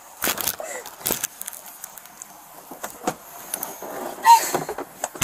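Rustling and several sharp knocks against a police car's rear door and seat as a handcuffed person is put into the back seat, with a short high note about four seconds in, the loudest moment.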